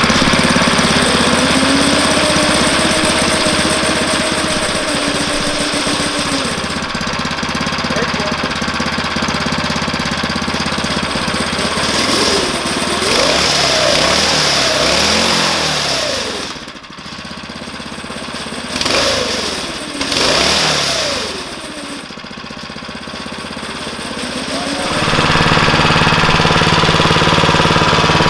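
Tillotson 212 single-cylinder go-kart engine running, its pitch rising and falling repeatedly with the throttle through the middle, then settling to a steady run near the end.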